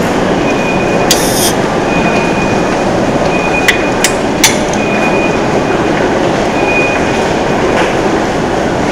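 Loud, steady roar of a busy station-front crossing, with a thin high squeal coming and going. A few sharp cracks come near the middle.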